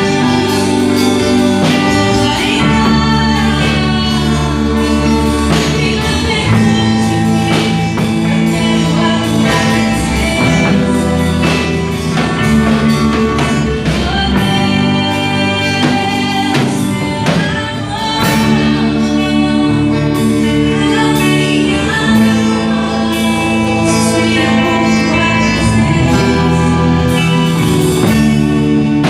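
Gospel worship band playing with singing over sustained bass and instruments, loud and steady.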